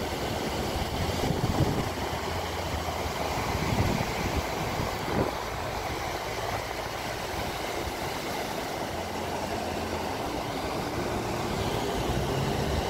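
Ocean surf washing in steadily: an even rushing noise over a low rumble.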